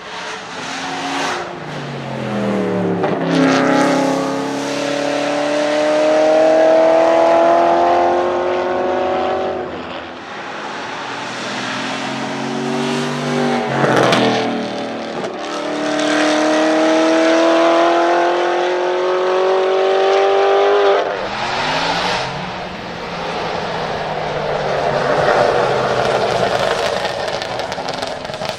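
Aston Martin Vantage AMR Pro racing engine under hard acceleration, its note climbing steadily in pitch twice. A sharp crack comes between the two pulls, and the note falls away after the second, settling into a steadier engine-and-road sound near the end.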